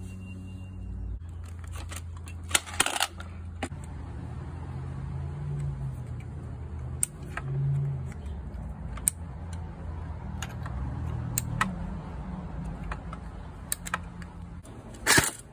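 Handling noise from an airsoft M1928 Thompson replica: scattered small clicks and knocks as the gun's body and controls are handled, over a steady low hum, with a louder brief clatter near the end.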